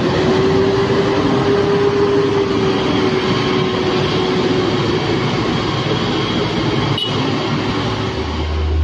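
Heavy coach's diesel engine labouring uphill out of a hairpin bend: a loud, steady drone with a whine that rises a little at first and then fades. One sharp click about seven seconds in.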